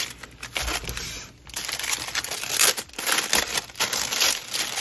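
Crinkling and rustling of a clear plastic wrapping and a sheer drawstring bag as a wallet is slid out and handled, in irregular rustles with a short lull about a second and a half in.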